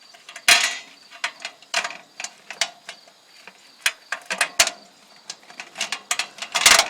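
Ratchet strap being worked to draw steel building arch sections tight, making sharp, irregular metallic clicks and clacks, with a quick run of them near the end.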